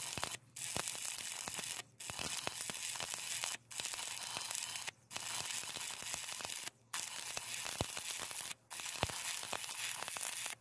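Electric arc welding with a stick electrode on steel: the arc gives a continuous harsh crackling sizzle, with spatter popping through it. It breaks off for a split second about every one and a half seconds, then picks up again.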